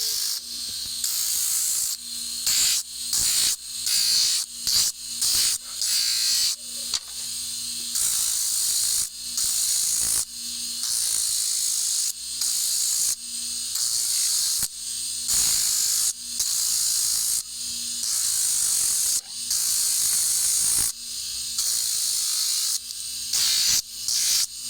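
A small motor-driven tool run in repeated short bursts, switched on and off every second or two, with a hissing, high-pitched sound.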